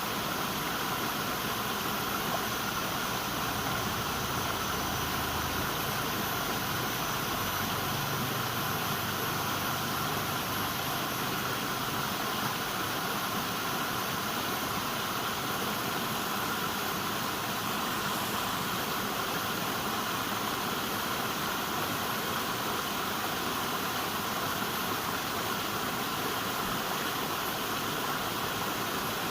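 River water rushing, a steady, even noise with no breaks.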